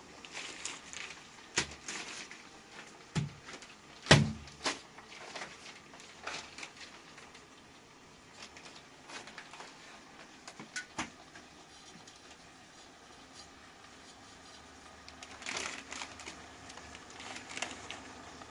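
Cooking utensils and spice containers being handled: scattered knocks and clicks, the loudest about four seconds in, with a few more near the end.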